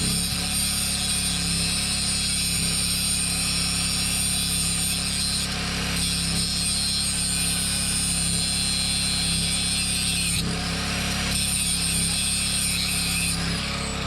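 Harbor Freight angle grinder with a cut-off wheel running and cutting into a steel trailer kingpin lock, a steady high whine that changes twice along the way. Near the end the trigger is let go and the wheel winds down with a falling whine.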